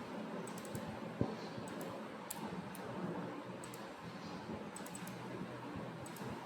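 Scattered clicks of a computer mouse and keyboard, short and sharp, a dozen or so spread unevenly over a steady low background hum.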